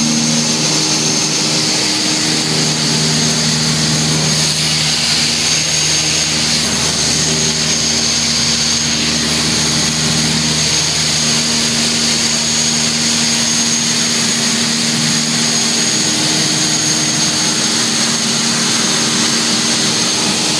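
Piper Seminole's twin piston engines and propellers droning steadily in cruise, heard inside the cabin, with a thin high-pitched whine on top.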